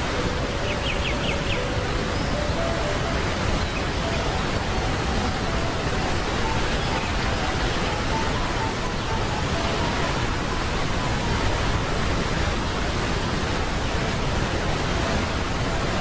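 Waterfall rushing steadily, a dense unbroken hiss of falling water, with a short run of high chirps about a second in.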